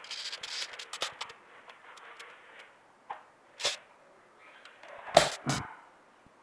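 Rustling and scraping as a bonsai's root ball is worked out of a thin white plastic pot, followed by a few plastic knocks. The loudest is a quick double clack about five seconds in, as the emptied pot is set down onto a stack of plastic pots.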